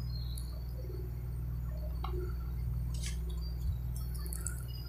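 Room tone: a steady low hum, with a few faint ticks and short high chirps scattered through it.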